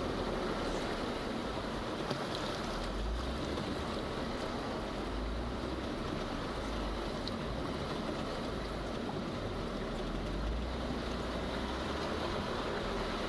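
Jeep Wrangler running through creek water: a steady engine rumble mixed with rushing water, and uneven wind buffeting on the microphone.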